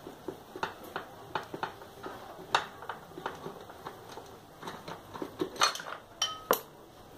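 Light metal clicks and clinks of a hand wrench working a 10 mm bolt loose on a motorcycle's air filter box, irregular, about one every half second, with a short ringing clink near the end.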